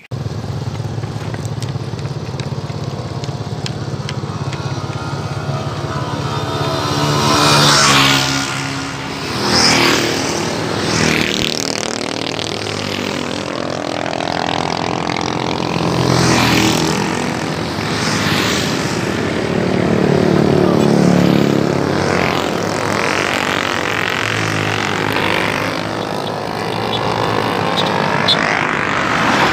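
Several motorcycles pass one after another, each engine note rising and then falling as it goes by, with some riders revving.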